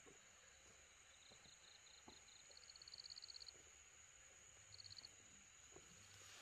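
Faint night chorus: a steady high-pitched drone with a rapid chirping trill that starts about a second in and quickens until three and a half seconds in, then a short repeat of the trill near five seconds in.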